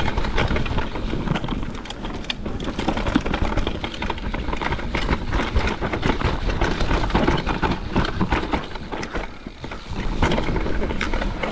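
Mountain bike descending a rooty dirt trail: tyres rumbling over the ground, with frequent knocks and rattles as the bike goes over roots.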